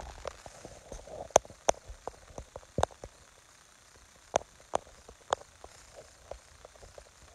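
A string of irregular sharp clicks and taps, about half a dozen louder ones among many small ones, the loudest about a second and a half in: handling noise and finger taps on the phone that is recording.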